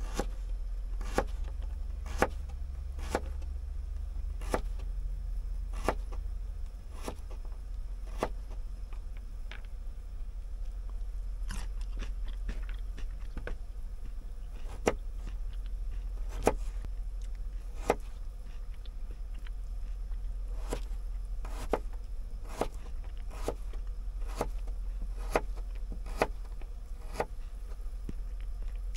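A knife chopping food on a cutting board, one sharp stroke about every second with uneven pauses, over a steady low hum.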